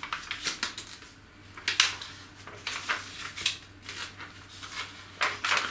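Magazine pages being turned and handled: paper rustling in several short swishes, the loudest about two seconds in.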